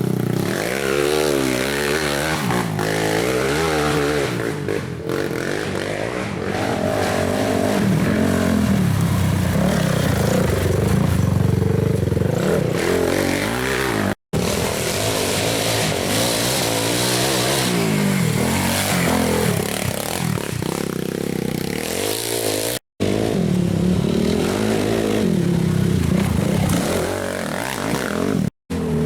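Racing ATV engines revving up and down as the quads race past and accelerate, often more than one engine at a time. The sound cuts out abruptly three times for an instant.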